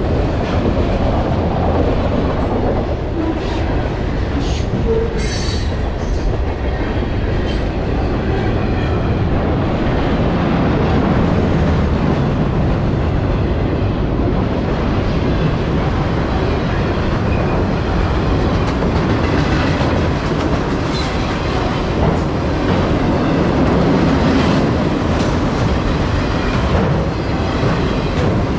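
Freight train cars rolling steadily past on the rails, a loud continuous rumble of steel wheels on track. A run of clicks and knocks from the wheels sounds in the first several seconds.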